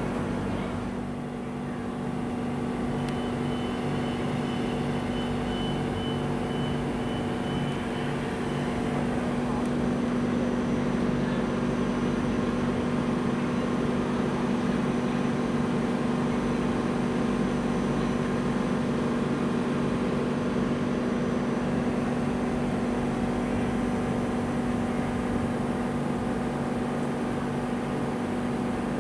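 ÖBB Railjet electric train standing at the platform, its equipment giving off a steady electric hum made of several even tones that do not change. A faint high whine sounds for a few seconds near the start.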